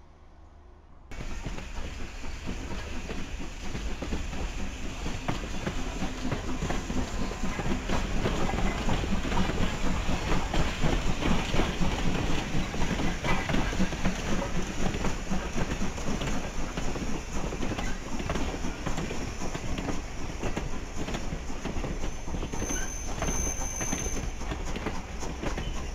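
Strasburg Rail Road passenger coaches rolling past close by, starting about a second in, their wheels clicking in a fast, even rhythm over the rail joints.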